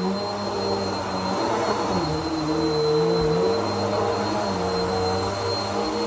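Upright vacuum cleaner running steadily with a high whine, its motor note dipping briefly twice as it is pushed across the floor.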